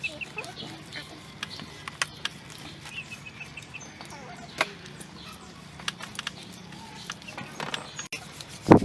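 Scattered light clicks and snaps of hand food preparation: a knife cutting slices from a slab of raw beef and fingers snapping the stems of leafy greens, over a low steady hum. One loud thump near the end.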